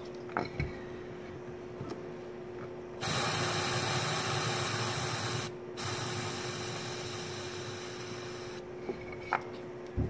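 Aerosol can of starting fluid hissing as it is sprayed into the engine's air intake, in two long bursts a few seconds in with a short break between. The second burst slowly weakens as the can runs nearly empty.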